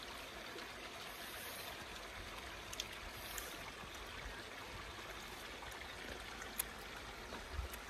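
Faint, steady rushing of a hill stream's flowing water, with a couple of soft clicks.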